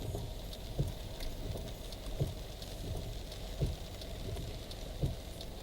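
Steady rain with separate water drops falling at an uneven pace, about one every second.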